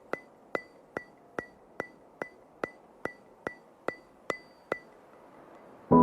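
Sharp, evenly spaced ticks, about two and a half a second, each with a short bright ring, like a wood block or clock tick. They run as the intro of the background music, stop a little before the end, and sustained piano-like chords come in right at the end.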